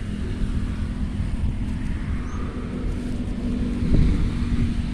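Steady low rumble of road traffic with a continuous engine hum, and a dull thump about four seconds in.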